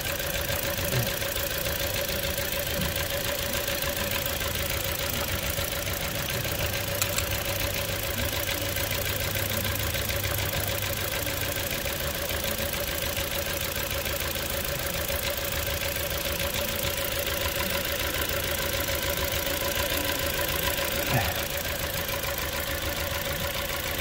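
Toyota Corolla 1.8 L four-cylinder engine idling steadily with a misfire on one cylinder, which the mechanic puts down to a weak ignition coil.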